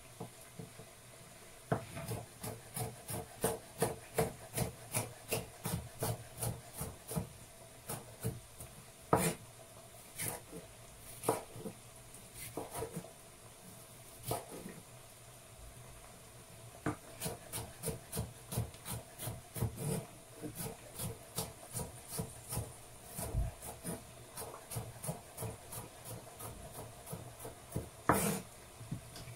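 Knife chopping vegetables on a cutting board: runs of quick, even strokes about three a second, broken by short pauses.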